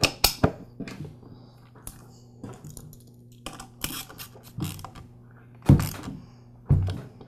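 Metal support bracket and bolt being handled and fitted against the plastic housing of an oilless air compressor: a scatter of small clicks and knocks, the loudest two near the end about a second apart.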